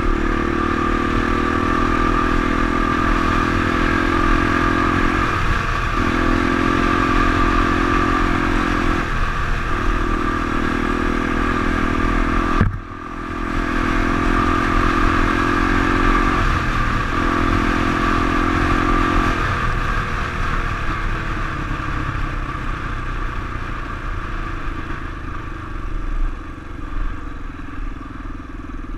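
Honda dirt bike's engine running under throttle while riding. The note holds steady in stretches of a few seconds with short breaks between them, dips suddenly for a moment about 13 seconds in, and eases off over the last several seconds.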